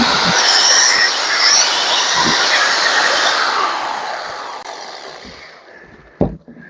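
Angle grinder cutting metal with a loud, high whine, then let off and winding down over about two seconds. A single knock comes near the end.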